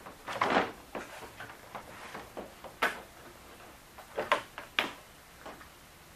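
Plastic radiator-support cover panel of a Lexus GX470 being pulled loose from its clips and lifted off: a series of plastic clicks, knocks and rattles, the sharpest about three seconds in.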